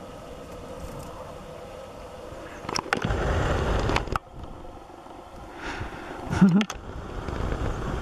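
Wind buffeting the microphone in gusts, loudest from about three to four seconds in, while a Siberian husky laps water from a bowl. A short low voice-like sound comes near the end.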